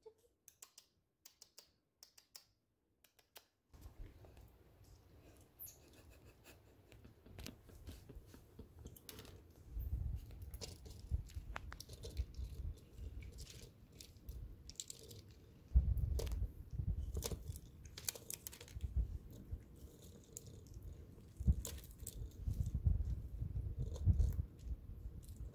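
Chipmunk cracking and chewing sunflower seeds at a metal pan of seed, a quick run of small crunches and clicks over low knocks, starting about four seconds in and coming louder in spells.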